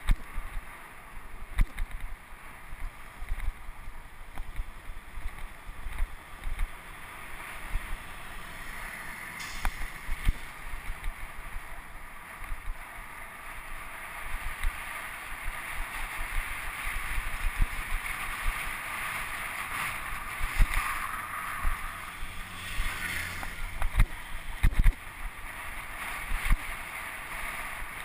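Wind and road noise on a bicycle-mounted action camera while riding, a steady rushing hiss that grows a little louder past the middle, broken by frequent sharp knocks as road bumps jolt the camera.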